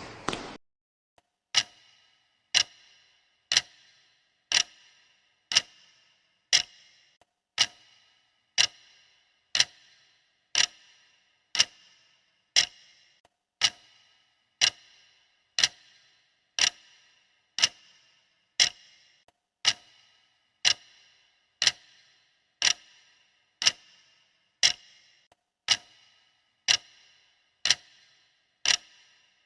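A steady series of sharp, bright clicks, evenly spaced about once a second, each with a short ring; they start about a second and a half in. Another sound stops about half a second in.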